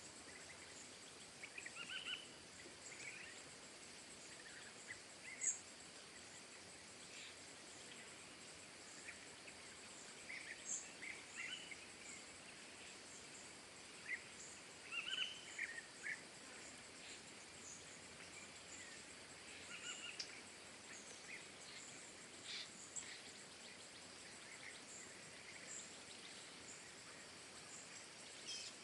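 Faint outdoor ambience: small birds giving short, scattered chirps over a steady background hiss.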